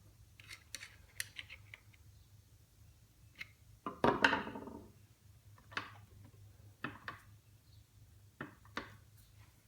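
Screwdrivers clicking and scraping against the steel spindle shaft and collar of an old drill press as the stuck collar is pried at. About four seconds in comes one loud metallic clank that rings for about a second.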